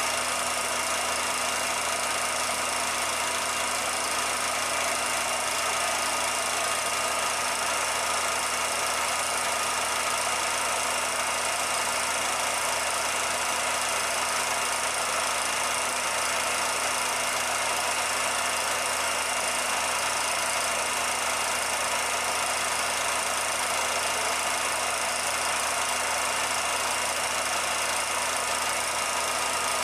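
A 16mm film projector running: a steady mechanical whir with an even hiss and a constant hum that does not change at all.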